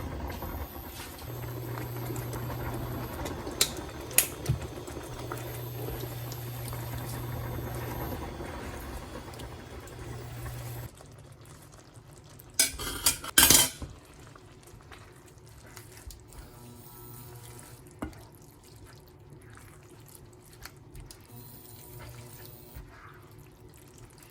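Kitchen work: utensils clinking and clattering against pots and dishes over a steady low hum that stops about eleven seconds in. A burst of louder clatters follows a couple of seconds later, then only light scattered clinks.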